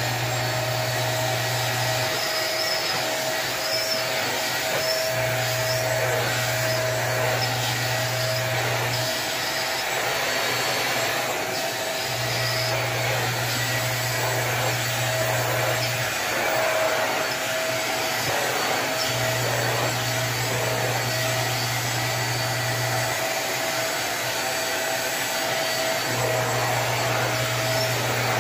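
Corded stick vacuum cleaner running steadily as it is pushed over a shag rug: an even rushing of suction with a steady motor whine.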